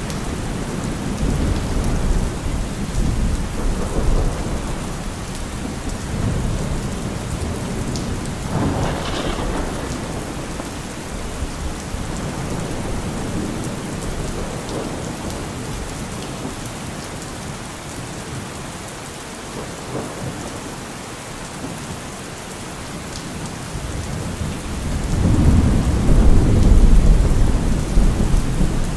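Heavy rain falling steadily through a thunderstorm, with thunder rumbling. A short peal comes about nine seconds in, and a long, deep rumble swells near the end as the loudest sound.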